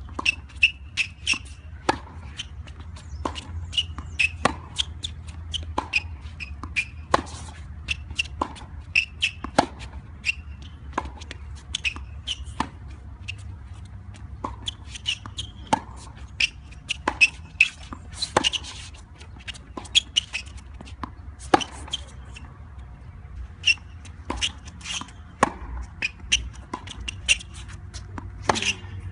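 Tennis balls struck by rackets and bouncing on a hard court during a baseline rally: a steady run of sharp pops, about one to two a second.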